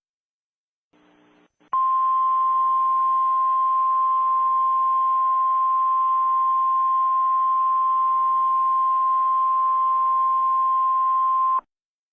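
Emergency alert attention tone: a single steady high beep over a faint hiss. It starts about two seconds in, lasts about ten seconds and cuts off suddenly.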